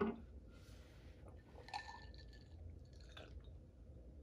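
A brief sound at the very start, then breath blown out through pursed lips after a tequila shot, and soft sips and swallows of a drink from a glass. All of it is faint.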